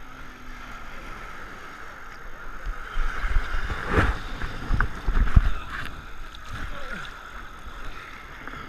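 Sea water sloshing and splashing against an action camera's waterproof housing at the waterline, with a few heavier low thumps as waves hit it, the strongest about four seconds in. Under it a motorboat's engine runs.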